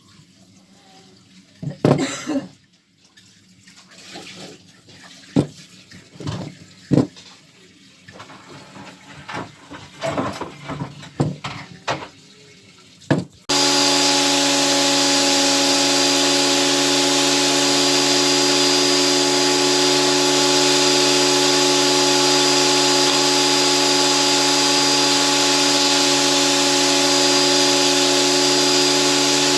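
Scattered knocks and clicks of wood and tools being handled, then about 13 seconds in a shop power tool is switched on and runs steadily with a loud, even hiss and a constant hum.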